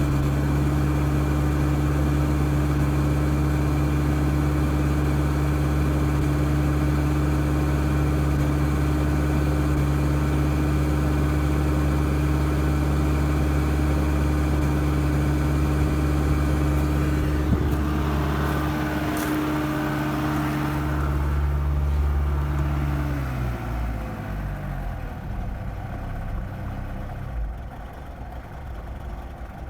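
Mitsubishi 4D56 four-cylinder diesel engine idling steadily, an idle the owner reports as rough. About three-quarters of the way through, the engine slows and stops, leaving a quieter background.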